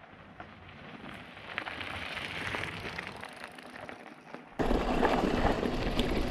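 Singlespeed mountain bike on a dirt trail: a faint crackle and ticking of tyres over grit, then from about four and a half seconds in a much louder rumble of tyres and rattle over the rough ground.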